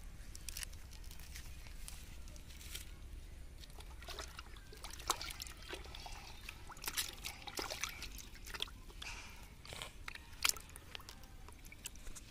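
Water sloshing and splashing in a blue plastic tub as a child's hands and a freshly caught fish move in it, in irregular splashes from a few seconds in.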